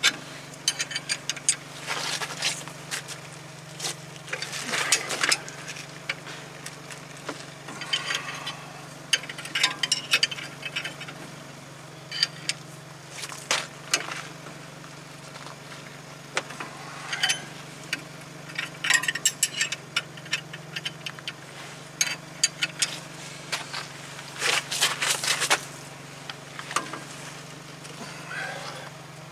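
Hand ratchet clicking in repeated short runs, with metal clinks, as it turns the screw of a C-frame ball joint press that is pushing a new ball joint down into a Toyota Tacoma's steering knuckle. A steady low engine hum runs underneath.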